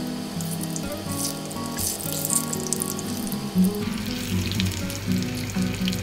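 Potato and corn pancakes sizzling as they shallow-fry in oil in a small frying pan, over background music.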